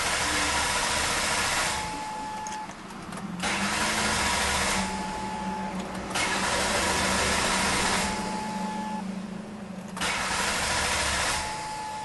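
The 3.0-litre 24-valve V6 of a 2003 Ford Taurus idling, with a hiss that swells and fades every couple of seconds. A short high tone sounds four times, each during a quieter spell.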